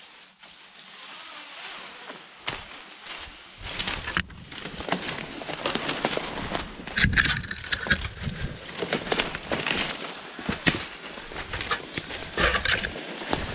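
Rustling and crackling of undergrowth with twigs snapping underfoot, as people and a tracking dog push through brush. The sound gets louder and busier after the first couple of seconds.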